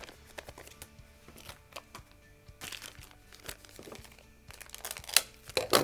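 Soft background music with crinkling of plastic parts packaging and light clicks of small gun parts being handled, with louder bursts of crinkling a bit before halfway and near the end.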